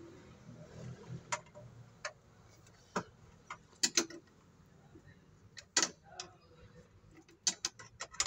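Irregular sharp metallic clicks and ticks of a wrench turning and knocking against a bolt head on a steel battery-mounting bracket as it is tightened down, about a dozen in all, several coming in quick pairs.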